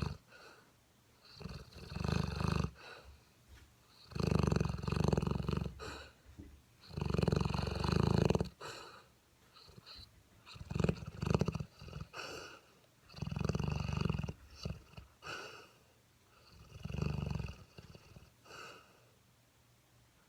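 Seven-month-old mastiff puppy snoring in its sleep: a loud snore on each breath, about six in a row, roughly one every three seconds.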